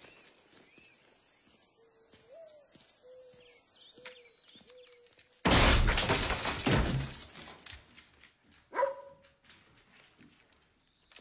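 Film soundtrack: a dog barks faintly a few times over a steady hum of crickets. About five and a half seconds in comes a sudden loud explosion that dies away over about two seconds, and a few seconds later one short sharp yelp.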